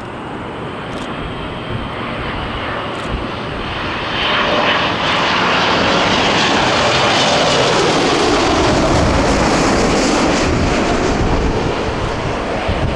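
Boeing 787 jet engines on landing approach, passing close overhead: a rushing jet roar that swells about four seconds in, with an engine whine that falls in pitch as the airliner goes by.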